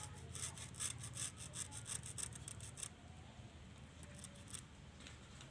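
A quick, even run of scratching strokes by hand that stops about three seconds in.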